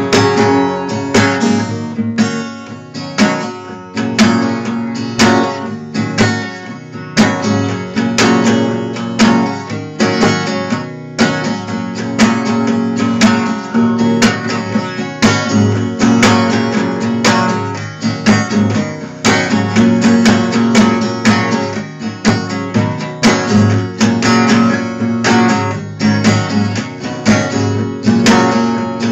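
Solo acoustic guitar strummed in a steady rhythm, each stroke ringing into the next.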